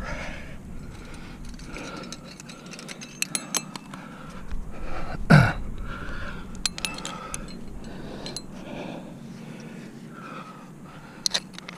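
Climbing hardware (carabiners and protection on the harness gear loops) clinking in short, scattered ticks while the climber breathes, as he sorts gear to place protection in the crack. One louder sudden sound comes about five seconds in.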